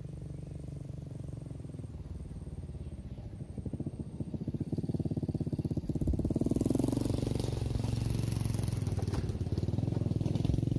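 Motorcycle engine running off to one side, its note steady and pulsing, growing louder about halfway through as it comes closer.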